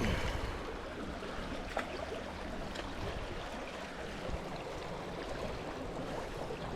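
River water flowing and babbling steadily around a wading angler, with a few faint light clicks.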